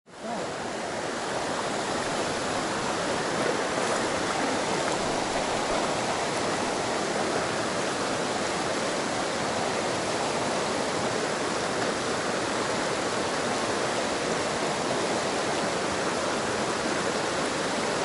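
Mountain stream rushing over rocks in shallow riffles, a steady even sound that comes up quickly from silence at the start.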